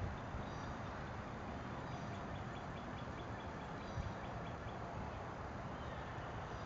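Outdoor ambience: a steady background rumble with faint, high bird chirps here and there and a short, rapid bird trill in the middle. A soft thump about four seconds in.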